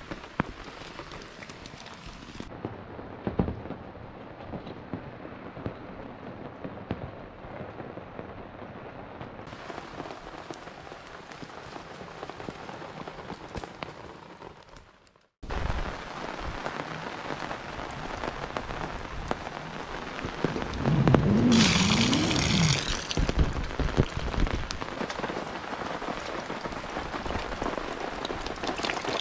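Steady rain falling on the ground, puddles and camp gear, in several cut-together shots with a brief drop-out about halfway. About two-thirds of the way through, a louder wavering sound with a high hiss rises over the rain for a couple of seconds.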